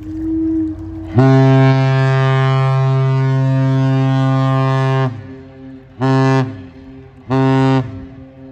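Great Lakes freighter's air horn sounding one long blast of about four seconds followed by two short blasts: the long-and-two-shorts master's salute. A fainter steady horn-like tone is heard in the first second before the long blast.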